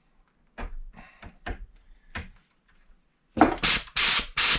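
Air angle grinder handled with a few light knocks, then four short blasts of compressed-air hiss as the trigger is blipped near the end. The overheated grinder is pretty seized up, so the air rushes through without it running up to speed.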